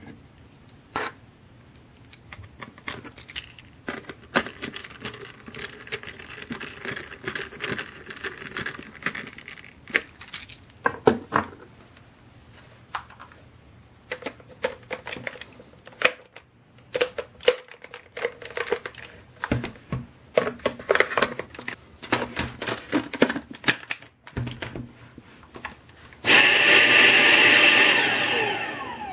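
Hard plastic parts of a Dyson V6 handheld vacuum clicking and knocking as the cyclone assembly is handled and fitted back onto the motor body. Near the end the vacuum's motor is switched on and runs steadily with a high whine for about two seconds, then winds down with a falling whine.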